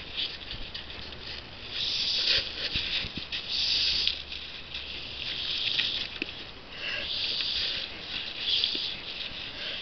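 Handheld garden hose spray nozzle shooting a thin jet of water, hissing and spattering, louder in about five stretches of roughly a second each as the jet is squeezed on. Short taps and snaps are mixed in.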